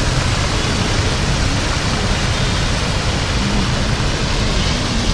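Steady rushing noise with a low rumble: outdoor city ambience of traffic and water around the pond, with no single clear event.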